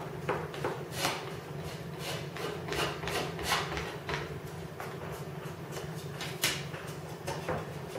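Aluminium wing rib being bent at its flange with a hand tool on the workbench: a dozen or so irregular scrapes, clicks and taps as the sheet metal is worked to take the bow out of the rib. A steady low hum runs underneath.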